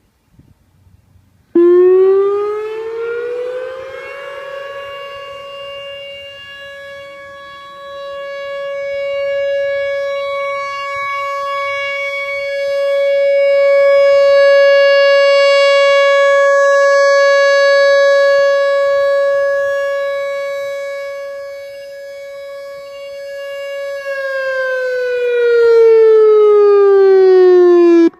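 Outdoor tornado warning siren sounding. It starts suddenly and winds up in pitch, holds one steady wail for about twenty seconds while its loudness slowly swells and fades, then winds down in pitch near the end.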